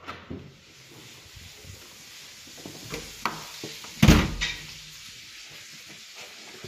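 Apartment entry door's lever handle and latch clicking as the door is opened, then a loud, deep thud about four seconds in as the door shuts.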